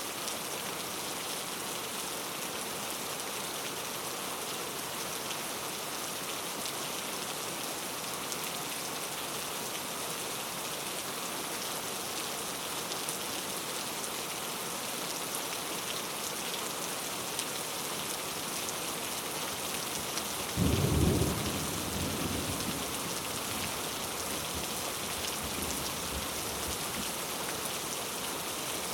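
Steady rain falling on foliage, an even hiss, with a clap of thunder about two-thirds of the way through that rumbles loudly for a second and dies away over a few seconds.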